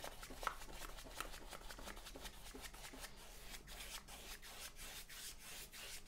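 Wide flat paintbrush scrubbing acrylic paint into a canvas in quick back-and-forth strokes: a faint, even, rhythmic brushing rasp.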